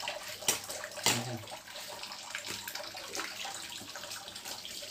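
Water poured from a plastic jug splashing over a wet cat and into a stainless steel sink during a rinse, with two sharp splashes or knocks about half a second and a second in.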